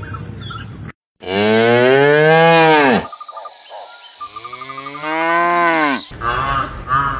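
Cattle mooing: two long moos with a short pause between them, each rising and then falling in pitch.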